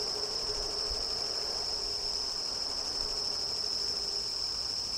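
A steady chorus of crickets trilling, high-pitched and unbroken, with a faint low hum underneath.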